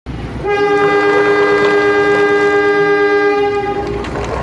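A two-tone train horn sounding one long blast of about three seconds, the lower note stopping shortly before the higher one, over a low rumble.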